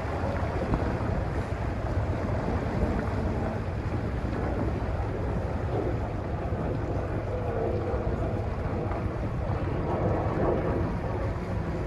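A lake passenger boat under way, heard from on board: a steady low rumble with water rushing past the hull and wind buffeting the microphone.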